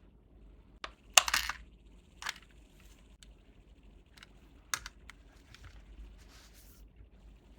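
Hands handling packaging from a mystery box: a few sharp clicks and taps, with a short crinkling rustle about a second in that is the loudest sound.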